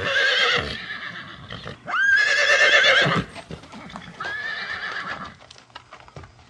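Horse whinnying three times, each call a quavering held tone of about a second, the second the loudest and the third fainter. Faint hoof clops come between the calls.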